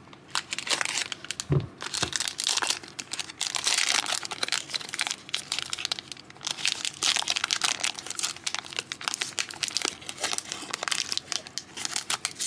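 Foil wrapper of a hockey trading card pack crinkling as it is torn open slowly and carefully by hand, with a soft low thump about a second and a half in.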